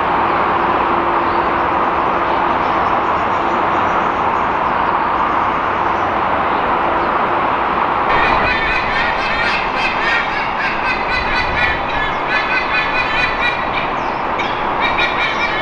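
White-bellied sea eagles giving loud honking territorial warning calls, a rapid run of repeated honks starting about halfway through, over steady expressway traffic noise.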